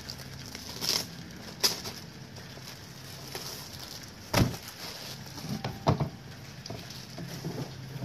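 Clear plastic packaging rustling and crinkling as a fabric storage bag is pulled out of it, with a few sharper knocks and crackles from the handling.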